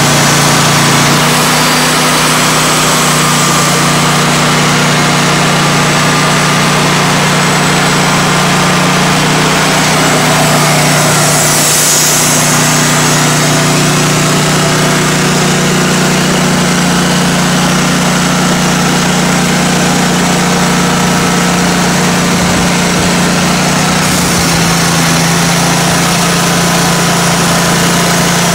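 Timberking 1600 band sawmill running steadily as its band blade cuts through an oak log. The engine note shifts slightly about a second in and again near the end.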